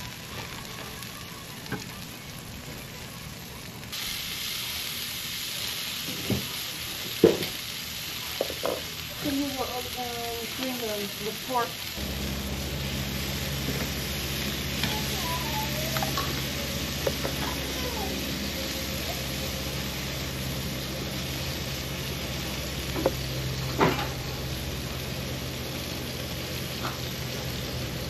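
Meat sizzling on a barbecue grill, a steady hiss that grows stronger a few seconds in, with a few sharp clicks. A low steady hum joins about twelve seconds in.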